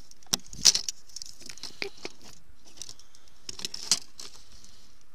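Plastic pole-rig winders being handled in a rig tray: irregular light clicks and taps with short scraping rustles as they are slid in and out of their slots, the sharpest click about two-thirds of a second in and another cluster near four seconds.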